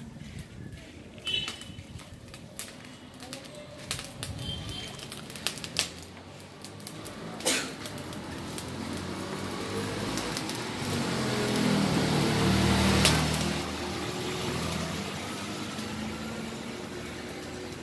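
A droning motor hum that swells over several seconds, loudest about two-thirds of the way through, then eases off; before it, scattered light clicks and knocks.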